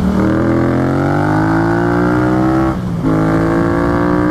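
Yamaha FZ-07's parallel-twin engine through a Yoshimura exhaust, accelerating hard with its pitch climbing; an upshift about three seconds in breaks the sound briefly before it climbs again.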